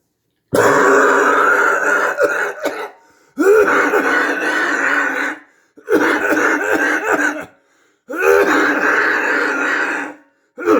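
A person coughing and clearing their throat hard in four long bouts of about two seconds each, offered as what a COVID cough sounds like.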